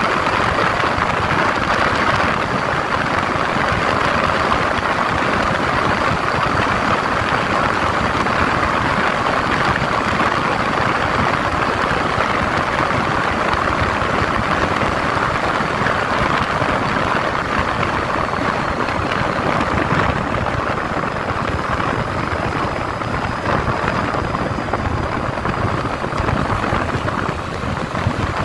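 A 150 cc Yamaha motorcycle running at highway cruising speed, its engine under a steady rush of wind and road noise, a little quieter near the end as it slows.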